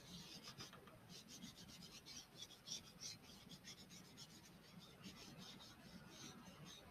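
Faint, scratchy rubbing of a tissue swept back and forth over chalk on paper, in quick repeated strokes several times a second, blending and smoothing the chalk.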